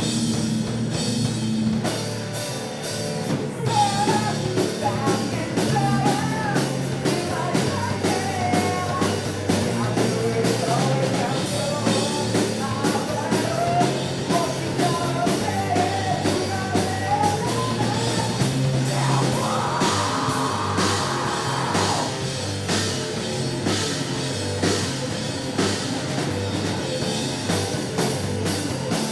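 Rock band playing an original song: drum kit keeping a steady beat under a stepping bass line and electric guitars, with singing.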